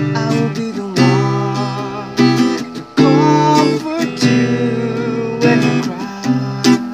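A man singing to his own strummed acoustic guitar, with chords struck about once a second under the sung melody.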